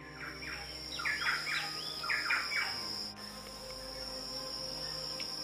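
A bird calling a quick run of short, hooked notes during the first three seconds, over a steady high-pitched insect drone.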